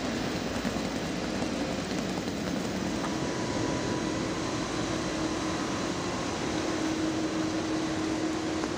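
Steady hum and hiss of a railway station platform beside a standing ICE train. A faint steady tone comes in about three seconds in.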